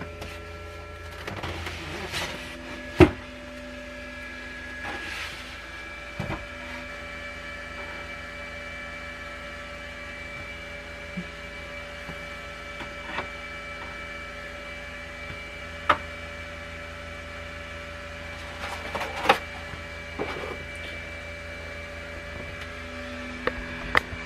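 Steady electrical hum under scattered sharp clicks and light knocks as a Hova-Bator incubator's lid is handled and eggs are set into its turner rack; the sharpest click comes about three seconds in.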